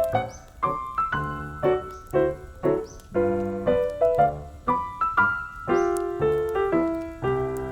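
Background music: a piano playing a melody over chords, notes struck and dying away.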